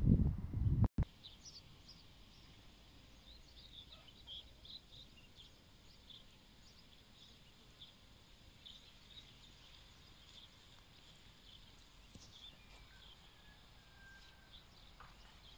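Small birds chirping, many short high chirps scattered throughout. A low rumble, the loudest thing here, opens the stretch and cuts off abruptly about a second in.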